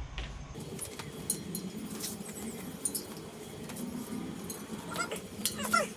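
Scattered light clicks and clinks as a CushCore foam insert is handled and fitted against a mountain bike rim and its tubeless valve, over a steady low hum.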